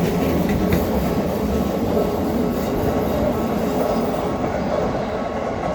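Keikyu train passing close by over a level crossing: a loud, steady rumble of wheels on the rails with a few clicks. The high hiss falls away about four seconds in as the train moves off.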